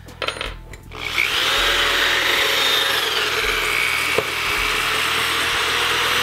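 A few small metal clinks, then about a second in a corded electric drill starts and runs steadily, its bit boring into the metal scooter deck. Its pitch drops a little about three seconds in as the bit takes load.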